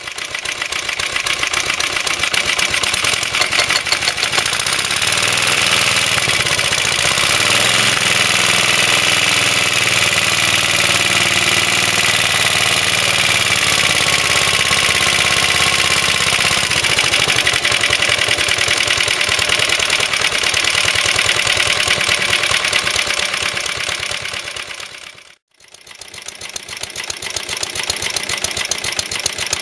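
Suffolk Iron Foundry 75G14 single-cylinder four-stroke side-valve petrol engine on a Suffolk Colt cylinder mower, running steadily with a fast, even exhaust beat through its replacement silencer. The sound breaks off briefly near the end and then picks up again.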